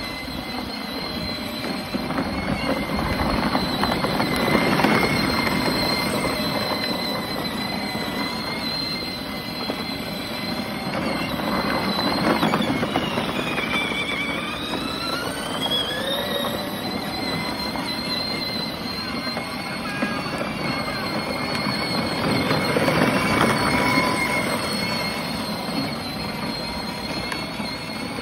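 PILSAN 12V battery-powered ride-on car driving: its electric drive motors and gearboxes whine steadily while the plastic wheels rumble over asphalt. The whine sags and climbs again about halfway through as the car slows and speeds up, and the rumble swells a few times.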